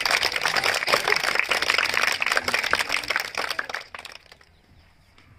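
Applause from a small crowd: dense hand-clapping that stops about four seconds in.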